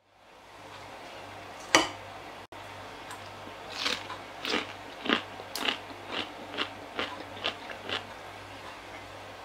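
Someone biting into a crisp pickled cauliflower floret: one loud sharp crack, then a run of about ten crunching chews over some four seconds, close to the microphone. The loud crunch is a test of the pickle's crispness, showing it firm and crunchy after one day in hot-water brine.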